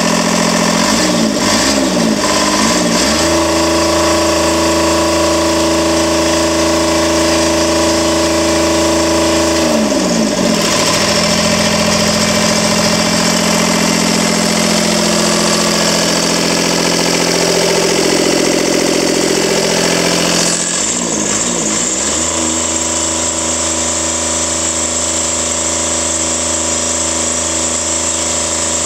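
Mitsubishi K3D three-cylinder diesel engine running out of its vehicle. It revs up about a second in and holds a high steady speed, drops back to a lower speed around the ten-second mark, then revs up again about two-thirds of the way through and holds there until it starts to fall near the end.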